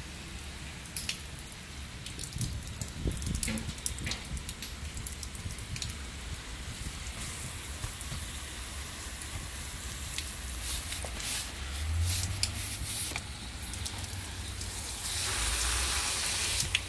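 Water jets from a Reaper Raptor water-fed pole brush spraying onto window glass and running off, a steady hiss with scattered drips and clicks. The hiss grows louder and fuller about fifteen seconds in.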